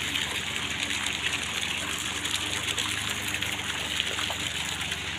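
Small fountain jets and a stepped water channel splashing and gushing steadily.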